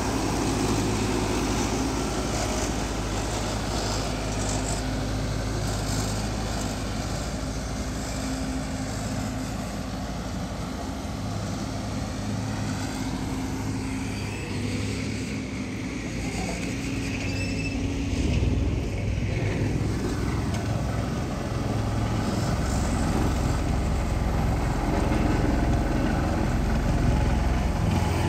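Diesel engine noise from construction machinery, including a Bobcat skid-steer loader, running steadily and growing louder over the last several seconds.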